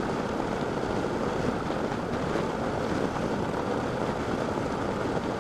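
Honda NC700X motorcycle cruising at highway speed: steady wind rush over a bike-mounted camera's microphone, with engine and road noise underneath.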